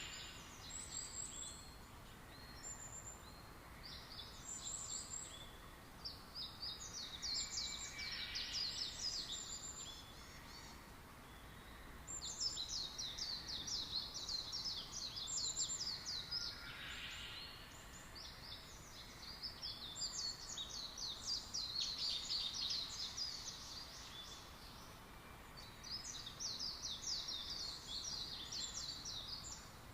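Birds calling: high, rapid chattering trills that come in phrases of two to five seconds, several times over, against a steady background hiss.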